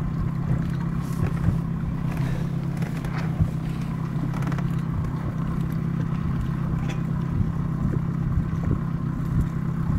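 Small motorboat's engine running steadily at low speed, a constant low hum over a rumbling noise.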